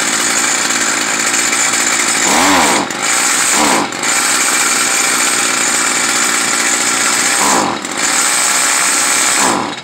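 Stihl FS 55R string trimmer's two-stroke engine running at high speed, dipping briefly about three times, then cutting out near the end. It still won't run right after carburetor adjustment: this one is going to need a new carburetor.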